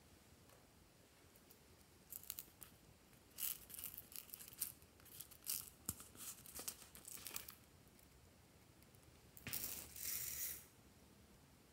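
Small plastic bead containers handled: a run of light clicks and rattles as a cap is worked and the beads shift inside, then about ten seconds in a short rattling pour of small beads from a little bottle.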